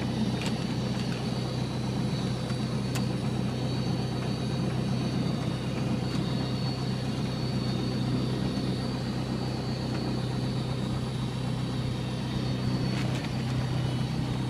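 High-wing light aircraft's engine and propeller running steadily at low taxi power, heard from inside the cabin.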